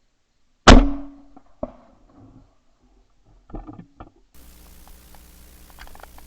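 A single loud shotgun shot under a second in, ringing off, followed about a second later by a much fainter sharp crack. Around three and a half seconds in there is a short cluster of clicks and knocks.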